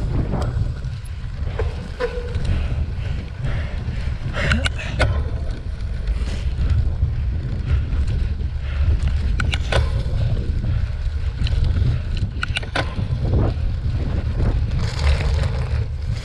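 Heavy wind rumble on a bike-mounted camera's microphone as a cyclocross bike is ridden over bumpy grass, with scattered sharp clicks and knocks.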